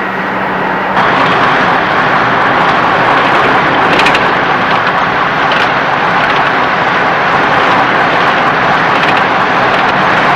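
Thunderbird 2's jet engines running steadily as it hovers, heard as an even rushing jet noise that grows louder about a second in. A faint click or two comes about four seconds in.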